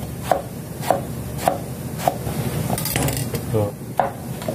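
Chef's knife slicing eggplant on a plastic cutting board. The blade knocks on the board in an even rhythm, a little under two strokes a second, and a bitter gourd is cut near the end.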